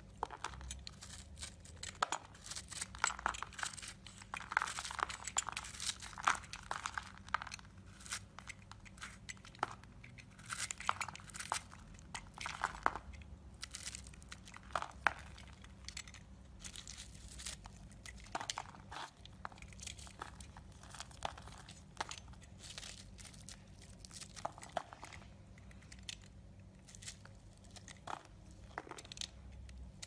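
A knife cutting and scraping into a bar of soap with a crusty, bubbly dried surface: crisp crunching and crackling, thick and rapid over the first half, then coming in sparser strokes.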